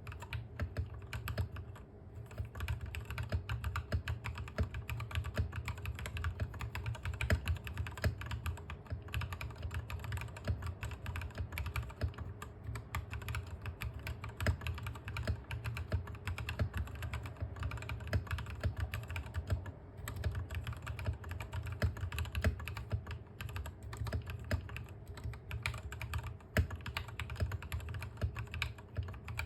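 Continuous typing on a Royal Kludge RK68 mechanical keyboard with lubed Gateron Milky Yellow linear switches, XDA-profile keycaps and case foam: a dense, unbroken stream of keystroke clacks, with a brief pause about two-thirds of the way through.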